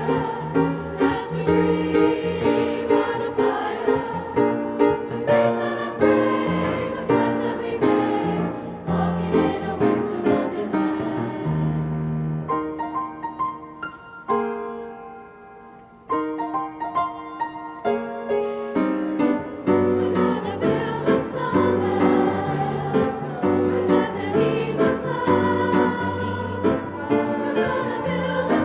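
High school mixed choir singing in parts with piano accompaniment. About halfway through, the singing thins and softens to a quiet held note, then the full choir comes back in.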